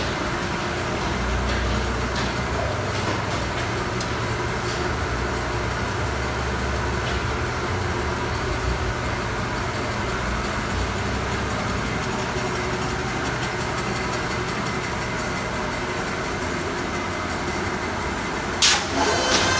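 Amada Pega 357 CNC turret punch press powered up and running with a steady low mechanical hum. Near the end a short burst of sharp metallic knocks.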